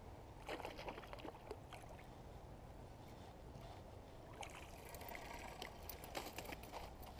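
Faint creek water with small splashes from a small rainbow trout being lifted out on the fishing line, and scattered light clicks and rustles of the line and hands handling it, busiest in the second half.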